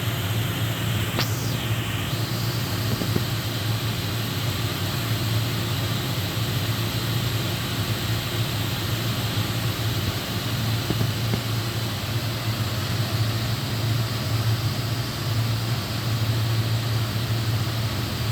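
DMG Mori NVX7000/50 CNC vertical machining center running with its spindle on: a steady low hum over a constant hiss, with a brief falling whine about a second in.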